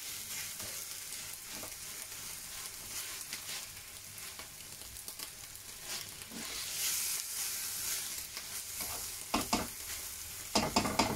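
Food sizzling and frying in a hot pan as it is stirred. A few sharp clatters of a utensil against the pan come near the end.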